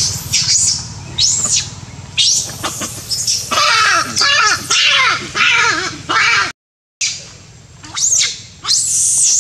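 Macaque calls: repeated shrill screams, each rising and falling in pitch, with lower wavering cries in the middle. The sound cuts out for half a second about two-thirds of the way through.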